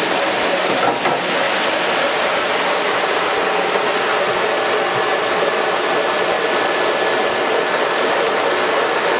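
JR 32L electric meat mincer running, a steady continuous machine whir and rush with faint steady tones.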